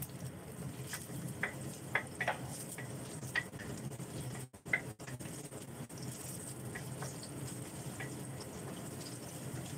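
Garlic and onion frying in a stainless steel wok, a light sizzle, while a wooden spatula stirs them. The spatula knocks and scrapes against the wok now and then, most often in the first few seconds, over a steady low hum.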